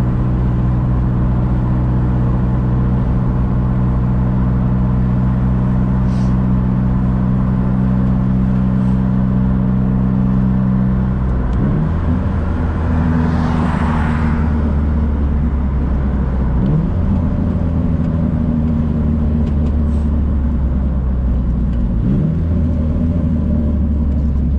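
Nissan S14 240SX engine running as the car is driven, a steady engine note that changes pitch about halfway through and shifts again twice later as speed and gearing change. A brief rushing swell of noise comes in just after the first change.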